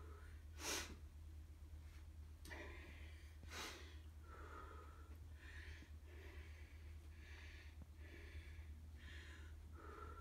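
A man breathing hard through his mouth while recovering between cardio exercises, soft breaths coming about once a second, with two sharper, louder puffs in the first four seconds, the first the loudest.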